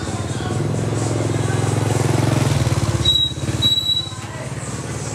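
Motorbike engine running close by, loudest about three seconds in, under street chatter, with a few short high-pitched beeps just after.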